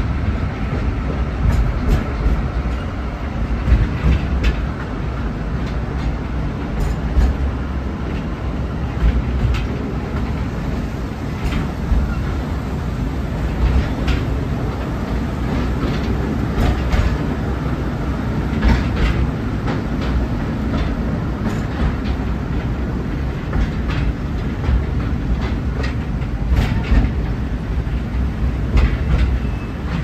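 Narrow-gauge forest railway train running, heard from an open-sided passenger car: a steady low rumble with irregular clicks and clacks from the wheels on the track.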